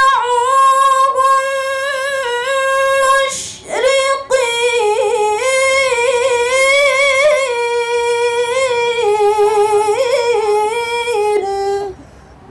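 A woman reciting the Qur'an in melodic tilawah style into a handheld microphone, drawing out long ornamented notes. A held note gives way to a short breath about three and a half seconds in, then one long winding phrase that ends just before the close.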